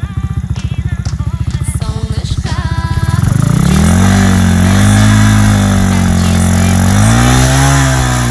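MotoLand Alpha motorcycle's single-cylinder engine idling with a rapid, even beat, then revved up about three seconds in, held high with a short dip, revved again and dropping back toward idle near the end.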